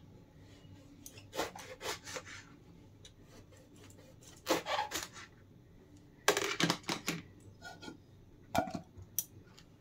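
Kitchen knife slicing a brinjal (eggplant) into rounds on a plastic cutting board: several separate cuts a second or two apart, each a quick run of short rasping strokes through the flesh ending on the board.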